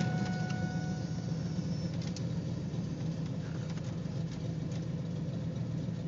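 Cammed LT1 5.7-litre V8 idling with an uneven, slightly fluttering beat from a misfire whose cause the owner has not found.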